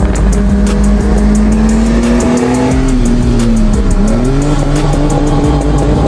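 Straight-piped Holden Commodore running under way, its exhaust note climbing slowly in pitch, dropping sharply about four seconds in, then climbing again.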